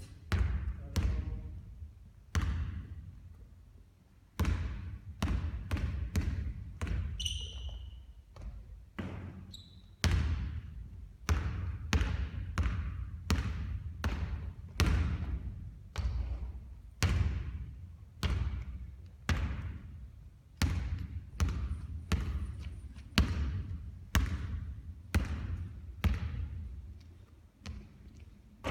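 Basketballs bouncing on a hard court, one thud every half second to a second, with a short lull about two to four seconds in. A brief high squeak comes a little past seven seconds.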